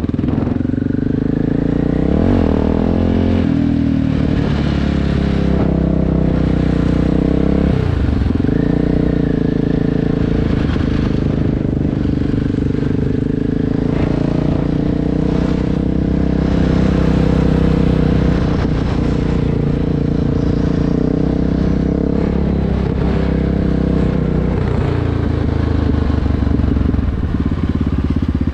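Sport ATV engine running under way, heard from the rider's seat, its pitch dropping and climbing back several times as the throttle eases off and opens again, then running steadier.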